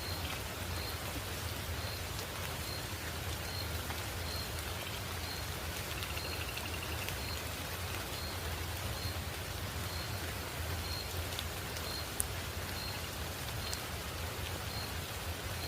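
Steady rain falling, with a short high chirp repeating about twice a second. A brief trill comes about six seconds in.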